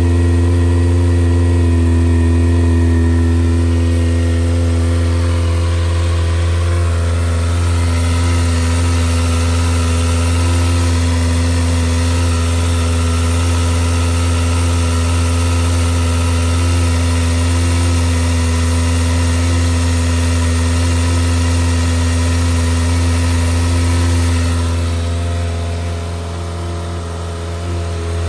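Kawasaki ZX-25R's 249 cc inline-four idling steadily through a Yoshimura R-77 full exhaust, warming up after a freezing cold start. The idle keeps an even pitch throughout and dips slightly in loudness near the end.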